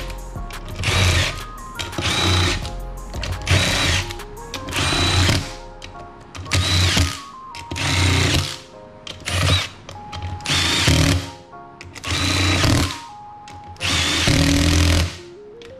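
Cordless impact driver running a socket in about a dozen short bursts, one after another, the last couple longer: the bolts of an ATV wheel's beadlock ring being run down. Background music plays underneath.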